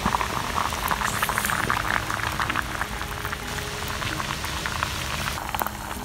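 Water boiling hard in a cast-iron pot of eggs under a wooden lid: a dense, steady bubbling and spattering, easing slightly near the end.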